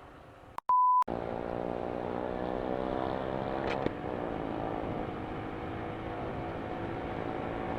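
A short censor bleep, a single steady tone, comes just under a second in. After it, the Yamaha YBR 125 ED's single-cylinder four-stroke engine accelerates, rising in pitch. It breaks briefly with a click around four seconds in at a gear change, then climbs again.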